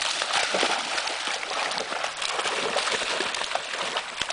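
Dogs running and splashing through shallow seawater, a continuous spatter of splashes.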